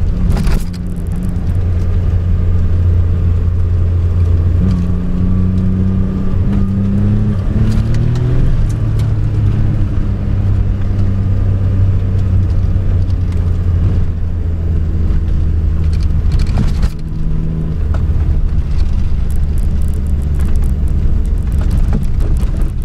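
A car engine heard from inside the cabin while driving on a snow-covered road, running steadily with its pitch stepping up and down a few times. There are a couple of thumps, one just after the start and one about two-thirds of the way through.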